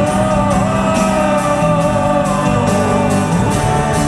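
Rock band music playing with no lyrics sung. A long held melody note bends slightly over steady bass and a regular beat of high, crisp strokes about twice a second.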